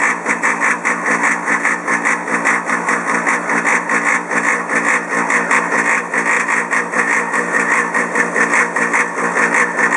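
Polaris PB4-60Q pool-cleaner booster pump running with a loud, steady mechanical noise and a fast, even pulsing. Its owner says the noise developed after only a few years and now carries more than 100 ft from an enclosure.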